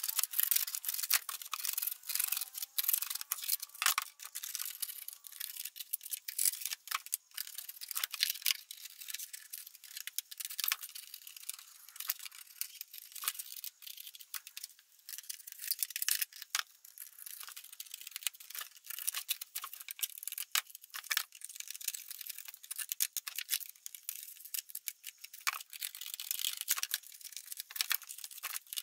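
Small knife blade scraping the edges of freshly drilled holes in a clear plastic storage box to deburr them: quick, irregular rasping strokes with sharp little scratches.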